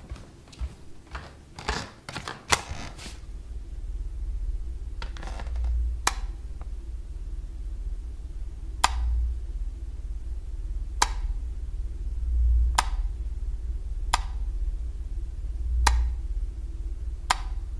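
A low, steady rumbling drone that swells every few seconds, with sharp single clicks sounding about every one and a half to two seconds.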